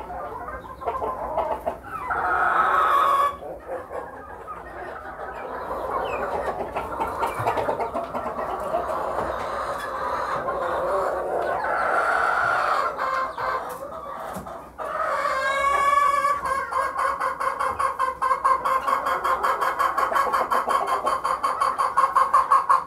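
Flock of chickens clucking and calling in a coop. There is a louder drawn-out call about two seconds in and another around fifteen seconds, and from about sixteen seconds on a fast, steady run of clucks.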